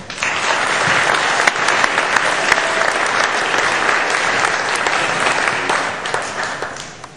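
Audience applauding, a dense clapping that starts suddenly and dies away near the end.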